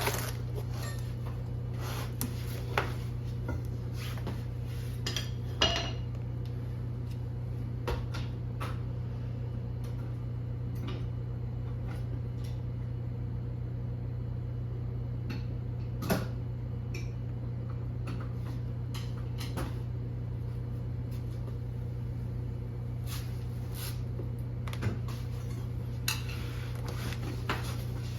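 Scattered metallic clinks and knocks of hand tools and parts during an axle replacement on a Honda CR-V, over a steady low hum. The sharpest knocks come about three seconds in, near six seconds and around sixteen seconds.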